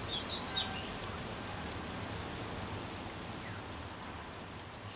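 Steady rain-like outdoor hiss with a small bird chirping briefly twice, just after the start and again near the end.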